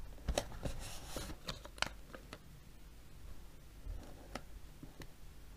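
Light paper handling: scattered soft clicks and rustles as fingers place and press a paper sticker onto a notebook page, busiest in the first two seconds and sparse after.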